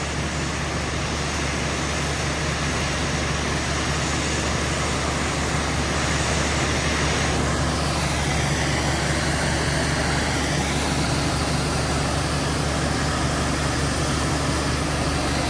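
High-pressure cleaning nozzle on a sewage truck's water hose spraying a fan of water under test pressure, a steady loud hiss, over the steady drone of the truck's engine driving the water pump.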